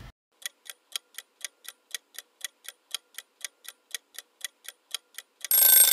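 Clock-ticking sound effect counting down the guessing time, about four ticks a second, ending near the end in a loud ringing bell that signals time is up.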